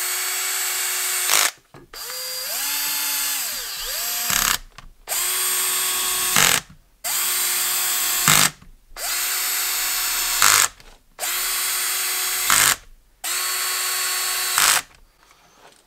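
Hilti cordless drill/driver driving the screws into the plastic clamshell housing of an impact wrench. It makes seven short runs of steady motor whine, one screw at a time, with brief pauses between. In the second run the speed dips and rises with the trigger.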